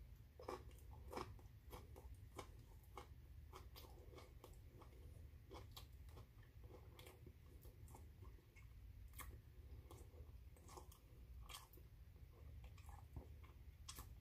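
A person chewing and biting broccoli stalks, with irregular crunches, one or two a second.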